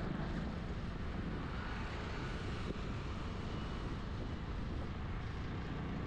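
Steady rumble and hiss of traffic and a moving vehicle on the road, unchanging throughout.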